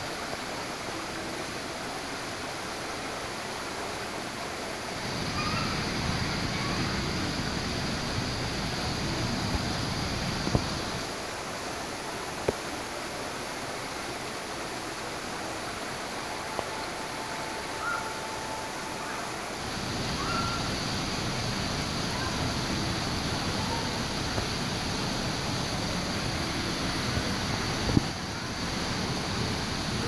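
Indoor artificial waterfall pouring down rock ledges into a pool, a steady rush of falling water. It grows fuller about five seconds in, eases back about eleven seconds in, and swells again about twenty seconds in.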